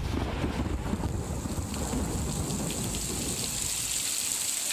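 Heavy rain hissing with a low rolling rumble of thunder under it, a storm sound effect; the thunder rumble thins out a little past halfway while the rain carries on.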